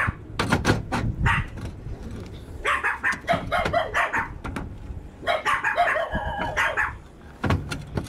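Neighbourhood dogs barking in quick runs of high yaps, about four or five a second, twice in the middle. The second run carries a held, whining tone. A few sharp knocks come in the first second.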